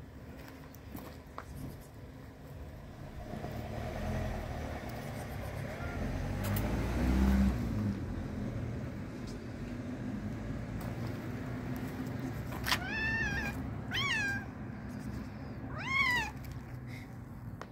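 Hungry stray cats meowing three times near the end, each call rising then falling in pitch, begging for food. Before that, a low rumble swells and fades.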